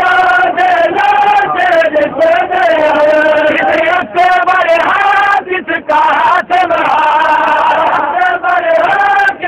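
Men chanting a noha, a Shia mourning lament, with long held, wavering sung lines broken only by short breaths.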